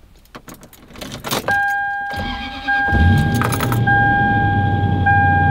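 Keys rattle and click, then a steady electronic warning tone comes on in the cab. The first-generation Toyota Sequoia's 4.7-litre V8 cranks and starts about three seconds in, then settles into a steady idle under the tone.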